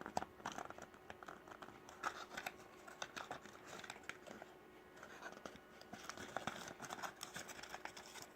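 Cardboard box and plastic packaging being handled and opened: scattered small crinkles, scrapes and clicks.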